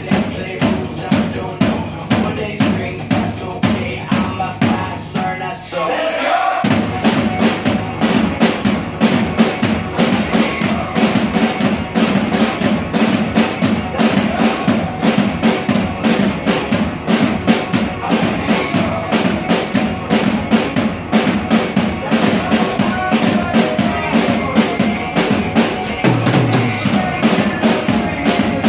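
Drum kit played along to a pop-rock backing track, with kick drum and snare keeping a steady beat. About six and a half seconds in, the music lifts briefly and the drumming comes in fuller and denser.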